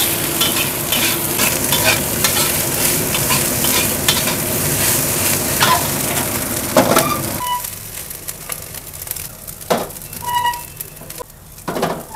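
Fried rice sizzling in a wok while a spatula stirs and scrapes it, with rapid clicking against the pan. About seven seconds in the sizzling drops away, leaving a few sharp knocks and scrapes of metal.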